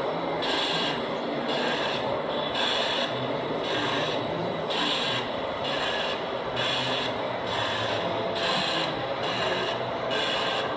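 KM1 Gauge 1 model steam locomotive's sound system giving slow, evenly spaced hissing chuffs, about one a second, as the locomotive rolls slowly.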